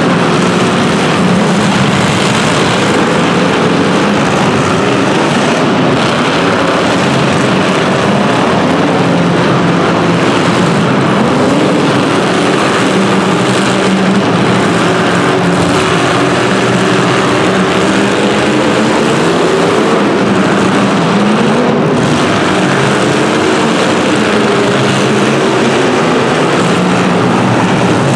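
Several small racing engines running together on track, their overlapping tones rising and falling as they rev and back off through the laps.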